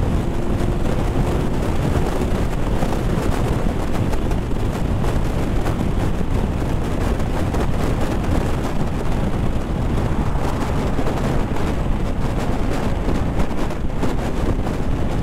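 Heavy wind rushing and buffeting over the rider's microphone on a motorcycle at highway speed, with the bike's running and road noise underneath; the rider calls it a lot of wind.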